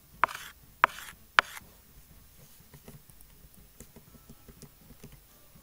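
Stylus strokes on a drawing tablet: three sharp taps in the first second and a half, then faint scratchy ticks as the pen moves.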